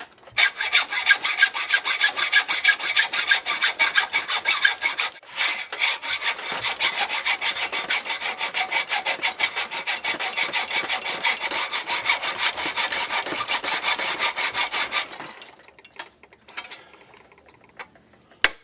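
Hacksaw cutting through the metal terminal nut of a hot tub heater element: rapid, even back-and-forth rasping strokes, with a short break about five seconds in, stopping about fifteen seconds in. The nut is being cut because it spins with the terminal, the epoxy behind it having failed. A single sharp tap near the end.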